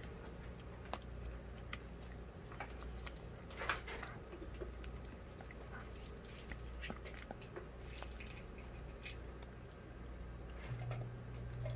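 Old greyhound eating soft food off a paper plate: irregular wet smacking and licking clicks, with one louder smack a little under four seconds in.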